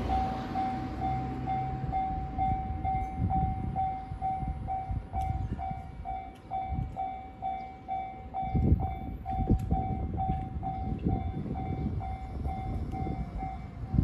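Japanese railway level-crossing alarm ringing its electronic 'kan-kan' bell in a steady repeating rhythm while the crossing is closed, over a low rumble.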